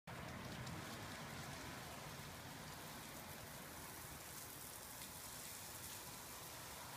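Lawn sprinkler spraying water: a steady, faint hiss of falling spray.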